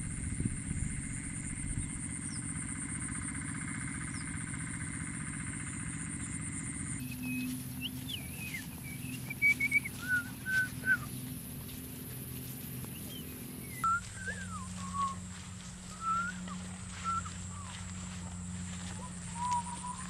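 A man whistling a loose tune of short, sliding notes as he walks, beginning about a third of the way in and carrying on in two stretches. The whistling sits over steady outdoor background noise. Before it there is only that background, with a high, even whine.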